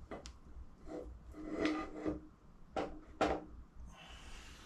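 Gearbox parts and tools being handled and set down on a workbench: several short knocks and clinks, one a little longer about two seconds in.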